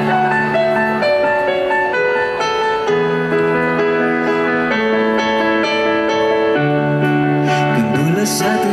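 Live concert music: a keyboard playing slow, sustained chords that change about every second or two, as the intro of a song.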